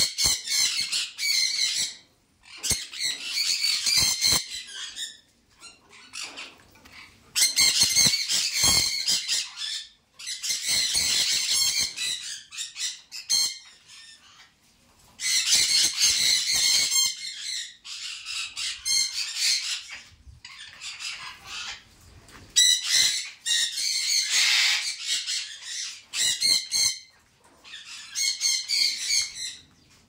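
Caged parrots screeching: about eight loud bursts of harsh, shrill calls, each lasting one to three seconds, with short pauses between.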